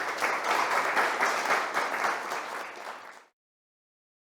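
Audience applauding, the clapping cut off abruptly a little over three seconds in.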